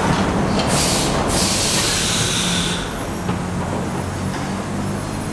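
Vintage New York City subway train of R33WF and R36WF cars rolling slowly on elevated track, a steady rumble of wheels and motors. A loud hiss runs from about a second in until nearly three seconds.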